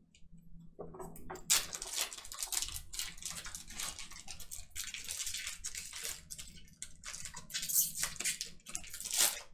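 Trading cards being slid into plastic card sleeves: a steady run of short, scratchy plastic rustles and scrapes.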